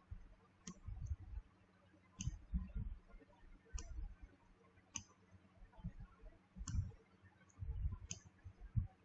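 Computer mouse button clicks as labels are picked up and dropped: about seven sharp, faint clicks spaced one to two seconds apart, with dull low knocks between them.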